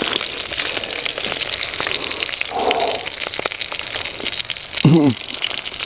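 Meat frying in a pan: a steady sizzle with many small crackles and spits.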